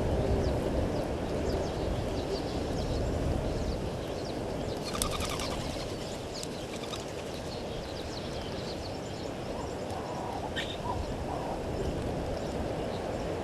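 Birds calling over a steady outdoor background hiss: a short burst of rapid repeated calls about five seconds in, then a few softer, lower notes and a brief chirp around ten seconds.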